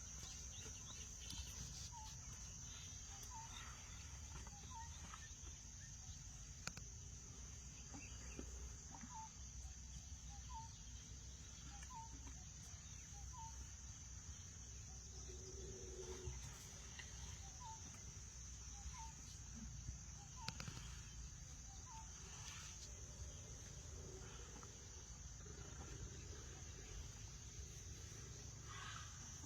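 Faint outdoor ambience: a steady high insect-like drone, with a short chirping call repeated about once a second over a low rumble.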